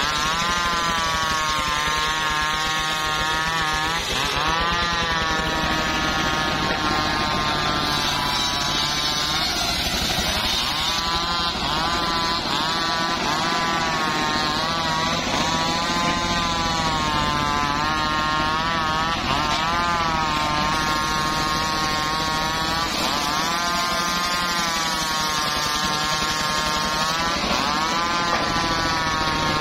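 Large circular blade of a homemade saw bench ripping through old teak timber. Its whine sags in pitch each time the blade bites into the wood and rises again as it frees, over and over every few seconds.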